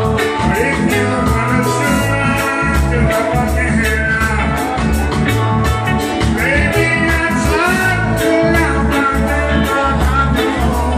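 Live band playing loud: a man singing into a microphone over electric bass, electric guitar and a steady drum beat.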